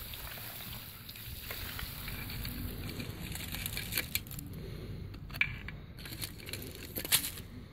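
A metal rod poking and scraping at the crusty thermite slag fused to an engine block: crunching and crackling, with sharp clicks that grow more frequent in the second half.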